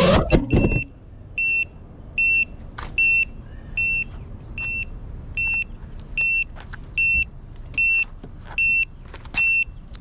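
FPV drone's motors whine briefly and cut off within the first second. Then its onboard buzzer beeps steadily, one short high beep about every 0.8 s, the locating beeper sounding with the drone on the ground.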